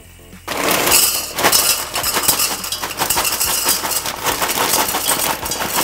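Dry fusilli pasta pouring from a bag into an empty stainless steel pot, a dense rattling clatter of hard pieces hitting the metal, starting about half a second in.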